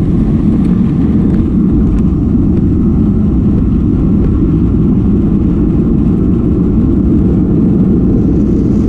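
Passenger jet taking off: a loud, steady, low rumble of engines and airflow that holds level throughout.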